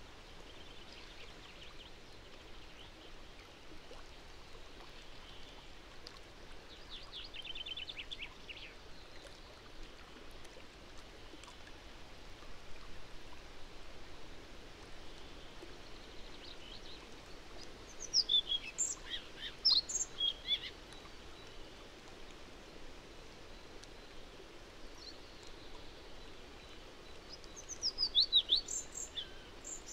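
Songbirds singing over a steady outdoor hiss: a short, fast trill about a quarter of the way in, then two louder song phrases of quick notes sweeping downward, about two-thirds of the way through and again near the end.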